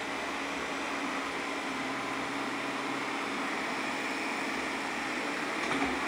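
Shark robot vacuum running steadily, a continuous motor and suction hum with a faint held whine, and a brief louder sound near the end.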